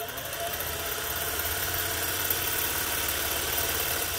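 Singer 401A sewing machine running at speed, speeding up as it starts, stitching a decorative embroidery pattern at a very short stitch length.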